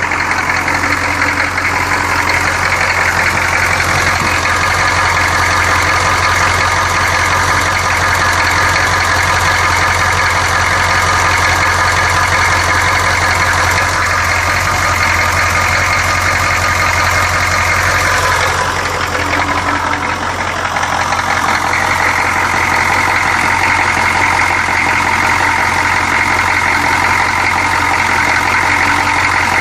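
1984 GM 6.2L V8 diesel engine idling steadily with a rapid knock, briefly dropping in level about two-thirds of the way through. The knock was first taken for rod knock, but the rod bearings checked tight, so the owner puts it down to an injector.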